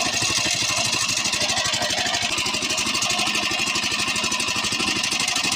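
Honda GX120 single-cylinder four-stroke engine driving a longtail (ketinting) boat propeller, running at a steady speed.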